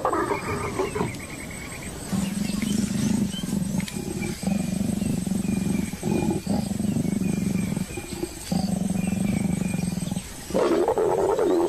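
African leopards growling and snarling during mating. There is a loud, rough snarl at the start and another near the end, with quieter long low tones that break off several times in between.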